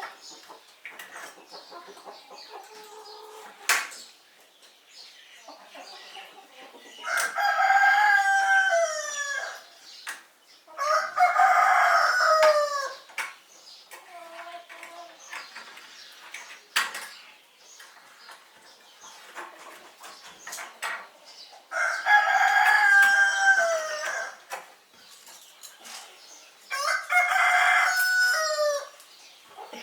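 Roosters crowing four times, each crow about two seconds long and dropping in pitch at the end, with softer hen clucking and scattered clicks between the crows.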